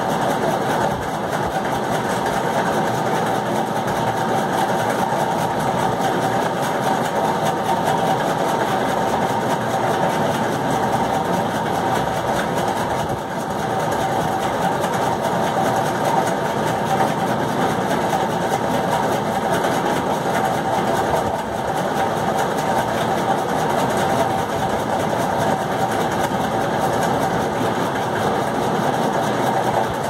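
Steady, unbroken mechanical hum of a running motor, with a droning tone in the middle range.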